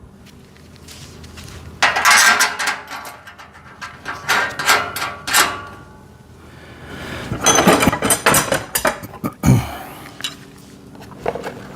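Metal rack parts clinking and clattering as they are handled and fitted together, in three bursts of clinks with short pauses between.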